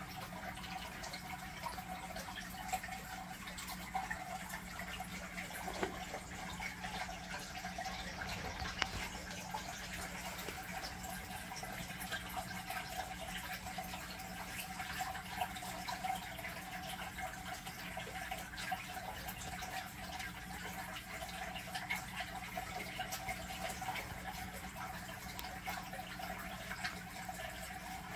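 Steady trickling and dripping of water in a turtle tank, with many small ticks and a constant low hum underneath.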